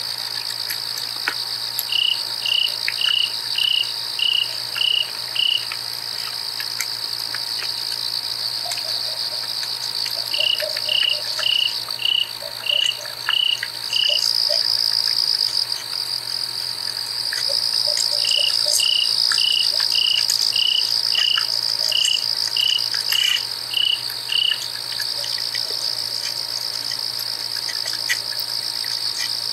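Night insect chorus: a steady high-pitched drone of crickets. Over it, a louder insect chirps in three runs of several seconds each, about two even chirps a second.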